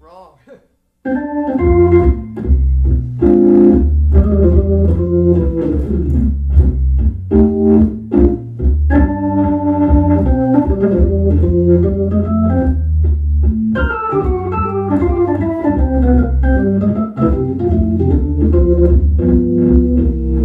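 Hammond organ played through a Leslie speaker cabinet: sustained chords over a strong deep bass, starting about a second in after a moment of silence.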